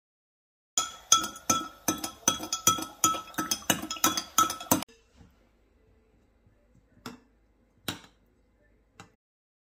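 Metal spoon clinking against a glass measuring jug while stirring red jelly liquid: evenly spaced ringing clinks, about three a second, that stop about five seconds in. After that, a few soft single clinks of a spoon on a glass bowl.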